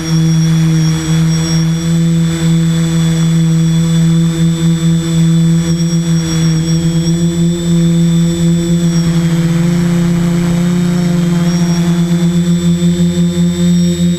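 Multirotor FPV drone's motors and propellers running at steady speed, a loud, even hum. From about two-thirds of the way in it takes on a fast pulsing beat as the motors drift slightly out of step.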